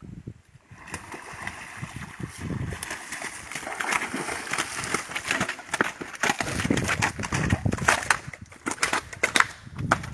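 Water splashing and sloshing, starting about a second in and going on irregularly with many small knocks and splashes.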